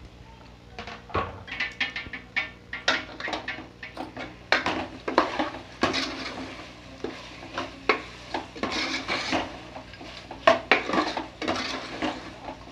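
Steel spoon scraping and clinking irregularly against a metal cooking pot while stirring chicken pieces with chopped onion and green chillies, starting about a second in.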